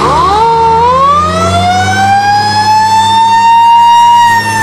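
Fire engine siren wailing: one slow rising wail that climbs for about four seconds and starts to fall near the end, over a steady low hum.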